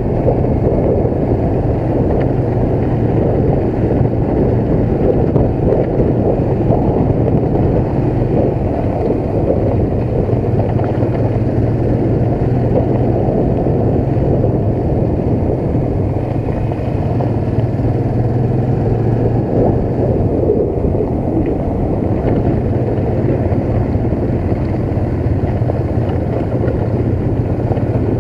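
Honda motorcycle engine running at a steady pace on a rough dirt road, with a constant low drone and wind rushing over the microphone.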